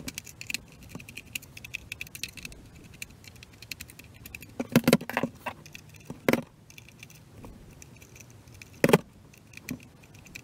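Small screwdriver ticking and scraping in the screws of a Jumper T12 radio transmitter's plastic back case as they are backed out, with a few louder clacks of tool or screws on the plastic about five, six and nine seconds in.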